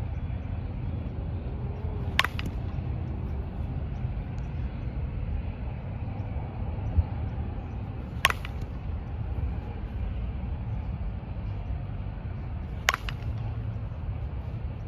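Softball bat striking a pitched softball three times, each a sharp crack with a short ring, about six and then four and a half seconds apart, over a steady low rumble.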